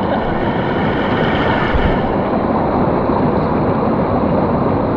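Steady wind rush on the microphone over a motorcycle engine running at an even pace while riding, from a Benelli TRK 502X parallel-twin.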